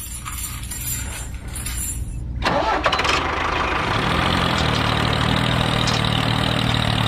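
An engine starts with a sudden burst about two and a half seconds in, then runs steadily at idle with a low, even hum.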